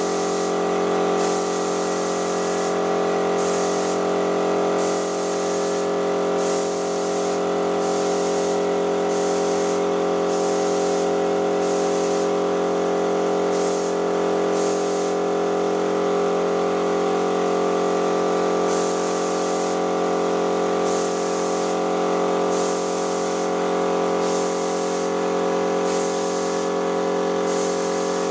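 Electric paint sprayer spraying paint: its motor hums steadily while the spray hisses in short on-off spurts, about one a second.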